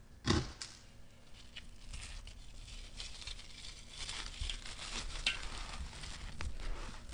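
Hands crushing and crumbling dry, gritty sand-and-cement mix, with a crisp gritty rustle and grains pattering as they fall back onto the pile. One sharp crunch comes just after the start, and the crumbling grows busier from about two seconds in.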